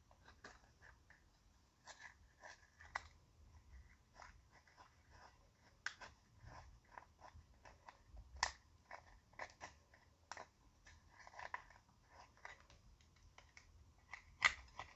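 A thin wooden stick scraping and digging pressed highlighter powder out of a heart-shaped compact, the powder crunching and crumbling as it breaks up. The scratches and crunches come irregularly, a few a second, with sharper clicks about eight and fourteen seconds in.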